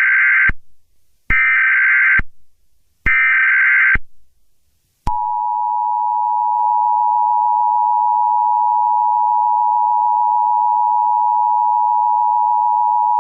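Emergency Alert System tones: three short stretches of buzzing SAME header data, the first already underway, then about five seconds in the steady two-tone EAS attention signal, which holds for about eight seconds. This is the coded header and alert tone that come before an emergency broadcast message.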